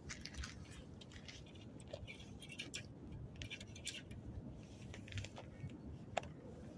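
Faint, irregular scratches and small clicks of clothing rustling and fishing gear being handled close to the microphone.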